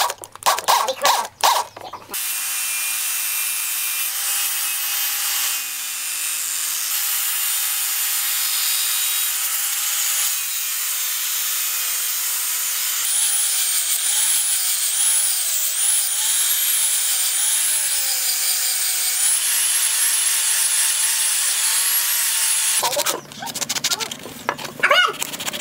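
Angle grinder with a cut-off disc cutting through a wooden knife-handle block and the metal inside it, a steady run with a high whine that wavers up and down as the load changes. It is framed by brief rapid rasping strokes at the start and hand sanding strokes with sandpaper near the end.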